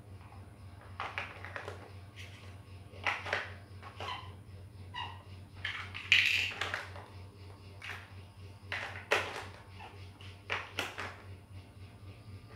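Plastic toy building bricks clicking and clattering as they are picked from a loose pile and pressed onto a build, in scattered knocks, the loudest about six seconds in. A low steady hum runs underneath.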